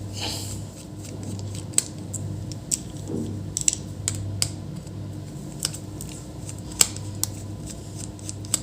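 Irregular small sharp clicks and taps of a screwdriver and metal parts as the screws holding a laptop's processor heatsink are undone, about one every second, with a brief rustle at the start and a steady low hum under it all.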